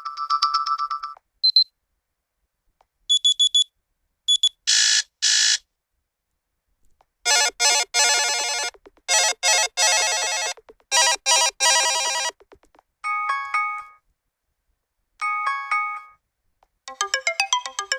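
Vsmart Live smartphone's built-in notification and ringtone sounds played one after another. Short electronic chimes and beeps are separated by pauses, a rapid repeating trill sounds in the middle, and a melodic ringtone starts near the end.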